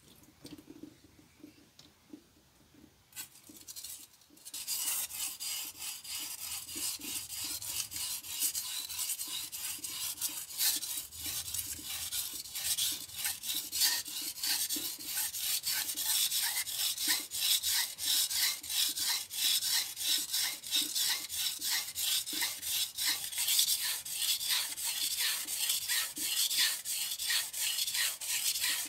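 Chef's knife being sharpened on a whetstone: after a few quiet seconds, quick, even back-and-forth strokes of the steel blade scraping across the stone start about four seconds in and keep a steady rhythm.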